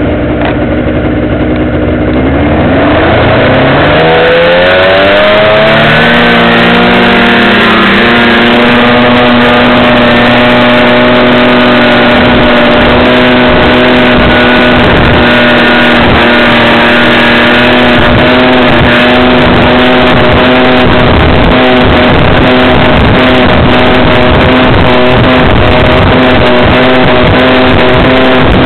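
A 2002 Arctic Cat ZR600 EFI snowmobile's two-stroke twin engine accelerates hard, its pitch climbing for about the first eight seconds. It then holds a steady high pitch at speed, loud and close.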